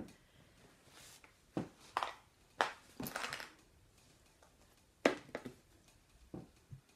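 Handling noise: a quilted fabric project bag and paper pattern being put aside and things shifted about on a table, heard as scattered rustles and light knocks, the sharpest about five seconds in.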